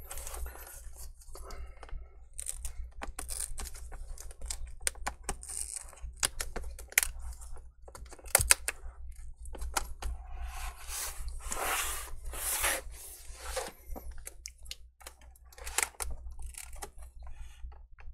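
A metal prying tool working along an HP laptop's plastic screen bezel, separating it from the screen: irregular clicks and scraping, with the crackling tear of the bezel's double-sided adhesive tape pulling apart, busiest about two-thirds of the way through.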